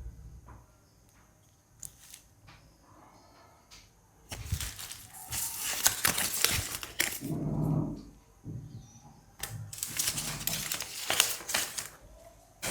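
Crinkling, rustling and clicking of packaging and small plastic parts being handled, in two stretches of a few seconds each.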